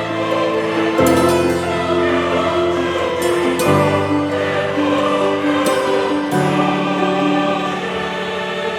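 Background music: slow, held chords that change about every two and a half seconds.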